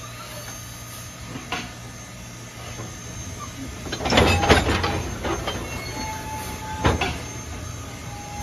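Three-foot narrow-gauge train rolling around a curve: a steady rumble broken by clanks and knocks from the wheels and running gear, the loudest cluster about four seconds in and another near seven seconds. A faint, brief wheel squeal comes in around six seconds.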